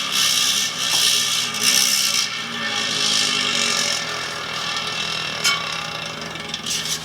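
DT Swiss 180 rear hub's ratchet freehub buzzing as the wheel coasts, a fast rattle of clicks, loudest in the first two seconds and fading as the wheel slows. A single sharp click about five and a half seconds in.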